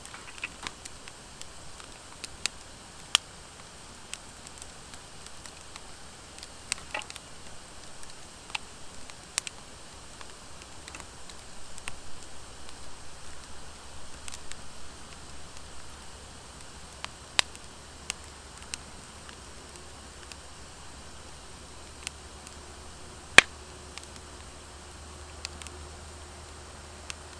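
Wood fire of driftwood and dry hardwood logs burning in a Coleman Fire Disk fire pit: a steady soft hiss with scattered sharp crackles and pops, the loudest about 23 s in, and a busier spell of crackling a little before the middle. The pops come from the dry hardwood, which crackles where driftwood alone would not.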